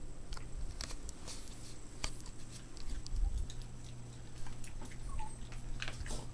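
Boston Terrier puppies playing and rolling about: scattered, irregular soft taps and rustles.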